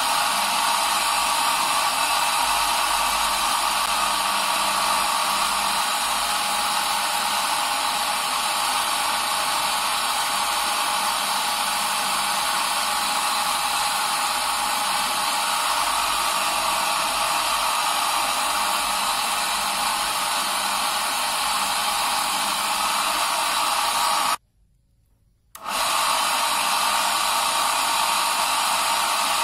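Electric heat gun running with a steady blowing hiss. The sound cuts out abruptly for about a second near the end, then returns.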